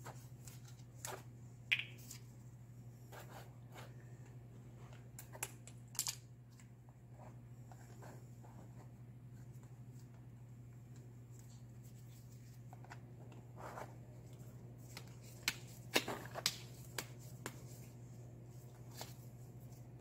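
Scattered plastic clicks and knocks from handling a two-part epoxy cartridge: uncapping it, fitting a mixing nozzle and seating it in a dual-cartridge dispensing gun, over a steady low hum. The sharpest cluster of clicks comes about sixteen seconds in.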